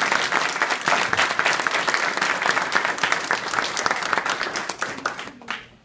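Audience applauding: many people clapping densely, thinning out to a few last claps and stopping just before the end.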